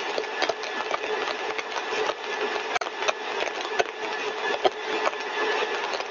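Motor-driven single-stage axial compressor rig running steadily at 90% of design speed: a constant running noise with a held mid-pitched tone, overlaid by frequent irregular clicks.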